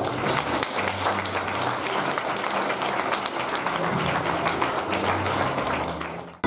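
Audience applauding as a scene ends and the stage curtain closes; the clapping fades out quickly near the end.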